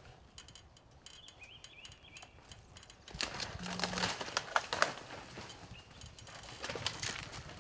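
Dry sticks and leaves crackling and rustling in a burst of quick clicks that starts about three seconds in, with a few faint bird chirps before it.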